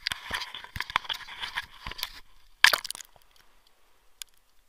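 Seawater splashing and crackling against a waterproof camera's housing at the surface, with one loud splash a little under three seconds in as the camera goes under. After it, muffled underwater quiet with a few faint clicks.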